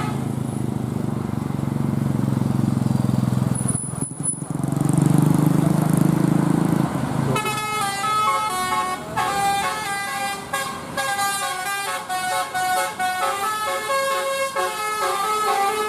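A bus engine rumbles low for the first seven seconds. Then a 'telolet basuri' multi-tone bus horn starts playing a tune in quick stepped notes.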